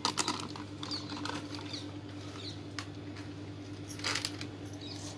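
Scattered light clicks and rustles over a steady low hum, with a few short, high bird chirps.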